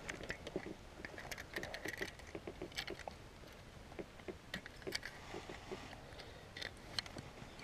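Scattered light clicks and taps from fingers working a small plastic hand-held fish scale while a largemouth bass is held by the lip, over faint background noise.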